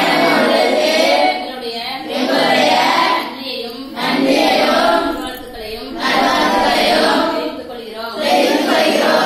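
A group of women chanting a prayer in unison, in phrases of about a second and a half with short breaks between them.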